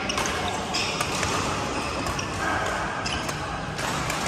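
Badminton play in a large sports hall: sharp racket hits on a shuttlecock and short shoe squeaks on the court floor, echoing, over a background of voices from other courts.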